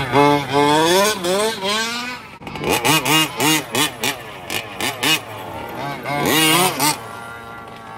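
Gas-powered 1/5-scale RC trucks' small two-stroke engines revving on and off the throttle, their pitch sweeping up and down in quick repeated arcs, with a short break about two and a half seconds in.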